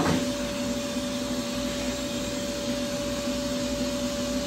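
Cold-air skin-cooling unit blowing air through its hose for laser tattoo removal: a steady whooshing hum with two steady tones.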